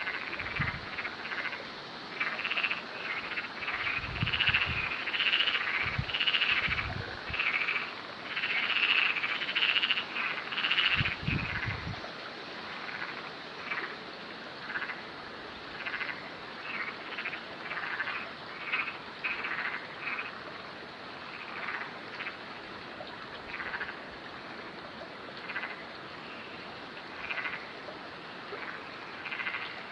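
Frogs croaking in a chorus: many calls overlap for the first twelve seconds or so, then thin out to single croaks about once a second. A few short low rumbles come in among the early calls.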